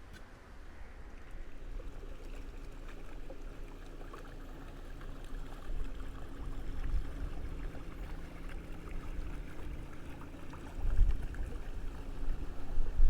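A motor boat's engine running and growing louder as it comes closer, with water noise. Gusts of wind buffet the microphone near the end.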